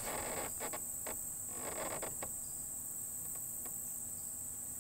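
Steady high-pitched insect chorus from the riverside woods, with a soft rustling noise and a few light clicks in the first couple of seconds.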